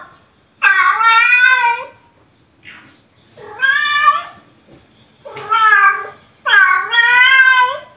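Recorded cat meows played through a speaker: four long, wavering meows, each about a second long, with a short faint one between the first two.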